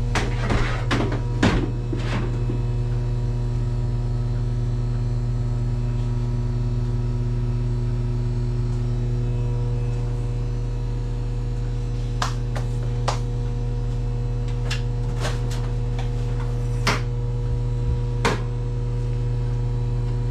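Split firewood knocking and clacking as logs are handled and stacked, a quick cluster of knocks at the start and a scattered run of them in the second half, over a steady electrical hum.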